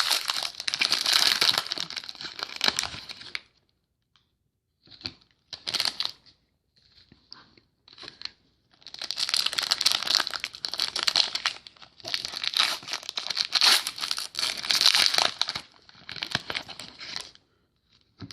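Trading card pack wrappers being torn open and crinkled by hand, in spells: a dense stretch at the start, a pause with a few short crinkles from about 4 s, then another long stretch from about 9 s until just before the end.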